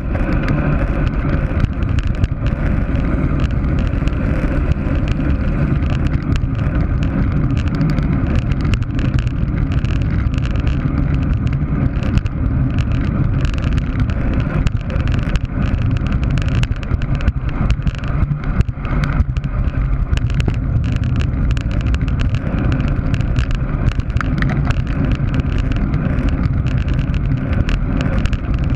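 Steady rush of wind buffeting the microphone of a camera riding on a road bike at race speed, mixed with tyre and road rumble. Frequent small ticks and knocks run through it.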